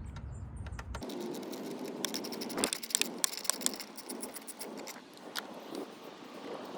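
Hand tools and plastic trim being handled: scattered light clicks and scraping, busiest in the middle.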